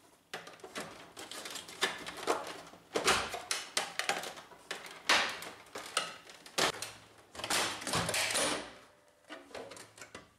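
Irregular plastic clicks, snaps and scraping as the hooks of a Brother laser printer's left side cover are released by hand and the cover is pulled off.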